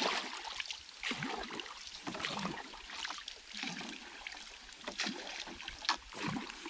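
Water splashing and sloshing in repeated strokes, about one a second.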